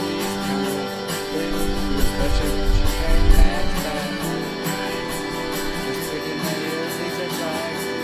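A guitar-led song playing, with strummed guitar. A low rumbling thump comes about a second and a half to three and a half seconds in.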